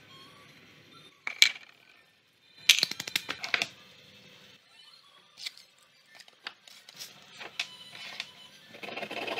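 Small wooden pieces and hand tools clicking and clattering on a workbench. There is one sharp click about a second and a half in, a quick rattle of clicks around three seconds, scattered taps after that, and a rasping scrape near the end.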